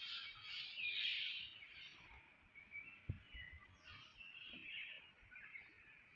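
Several birds chattering and calling, thickest in the first second and a half, then scattered chirps. A short knock sounds about three seconds in.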